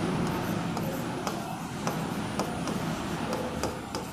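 Marker tip clicking and scraping on a board as a word is handwritten, over a steady low rumble that eases slightly as it goes.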